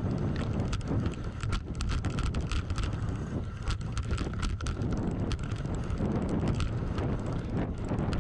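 Voodoo Bizango hardtail mountain bike being ridden fast down a dirt trail: knobby tyres rumbling over the ground, with frequent sharp clicks and rattles from the bike and wind buffeting the microphone.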